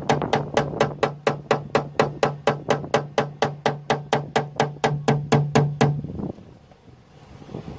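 Paintless dent repair tapping: a knockdown tool struck with a small hammer on the door's sheet metal to flatten the raised body line, an even run of sharp taps at about five a second. A steady low hum runs under it, and both stop about six seconds in.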